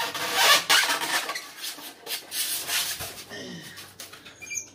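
Foam packing block rubbing and scraping against an electric scooter's frame as it is worked loose, in a run of noisy scrapes that thin out after the first two seconds or so.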